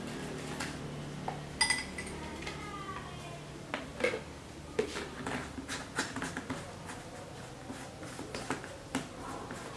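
Metal teaspoon clinking and tapping against a glass and other kitchenware while sugar is added to a drink: a run of small knocks, with one clear ringing clink about one and a half seconds in.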